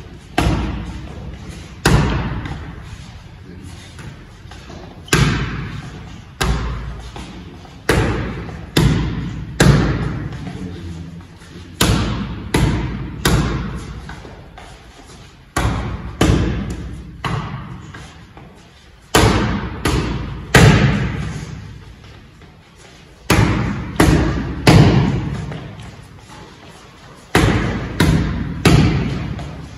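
Boxing gloves punching focus mitts in quick combinations of two or three, with short pauses between them. Each hit is a sharp smack followed by an echoing tail.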